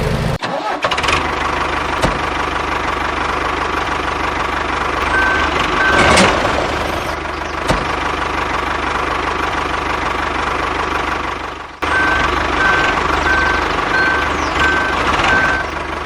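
Engine running steadily, the sound cutting off sharply about half a second in and again about twelve seconds in, then carrying on. A string of short beeps, about two a second, comes in the last few seconds.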